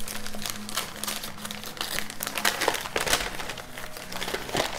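Paper wrapping being unfolded from two pork chops, crinkling and rustling in a run of irregular crackles.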